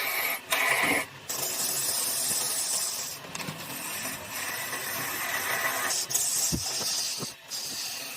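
A tool working wood, making a steady scraping hiss that breaks off briefly a few times, with a couple of light knocks near the end.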